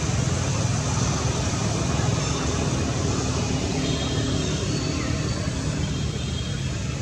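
A steady low mechanical rumble, like a running engine, with a few faint short high chirps in the middle.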